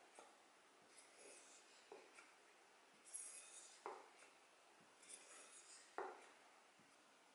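Faint scraping strokes of a hook-shaped woodturning hollowing tool's steel edge drawn along a hand-held strop block, about one stroke a second: honing the tool's edge.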